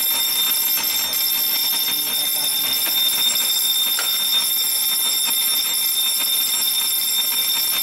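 Fire alarm sounding after a manual pull station has been pulled in a system test: a steady, unbroken, high-pitched ringing.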